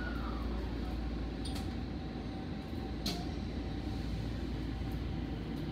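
Nagoya subway Higashiyama Line N1000-series train heard from inside the car while running: a steady low rumble with a faint steady hum, and two sharp clicks about a second and a half and three seconds in.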